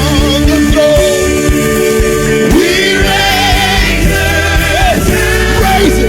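Gospel song with a lead voice and backing vocals singing over a band with bass and a steady beat.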